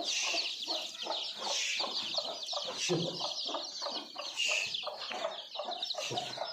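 A flock of desi (country) chicks peeping continuously in a dense high chorus, with hens clucking in short repeated calls underneath.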